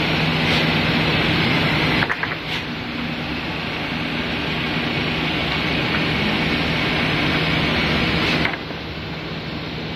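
Nine-head wood moulding sanding machine running: a steady motor hum under a steady whirr. The sound drops abruptly in level about two seconds in and again near the end.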